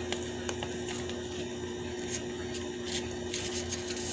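A small spiral notebook being handled, giving faint clicks and rubbing from the pages and wire binding, over a steady low hum.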